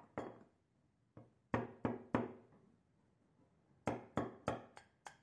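Hammer striking old rusty steel tin snips: sharp metallic knocks with a short ring. There are three blows about a second and a half in, then five quick ones near the end, about three a second, knocking rust loose.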